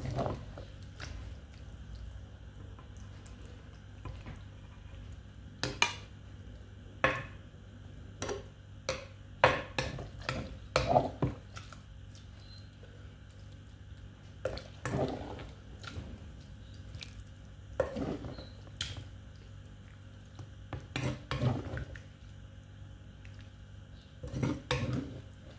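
A spoon scraping and clinking against a wooden mortar and a plate in short irregular clusters, with wet squishing, as pounded mixed salad with noodles is scooped out and heaped onto the plate.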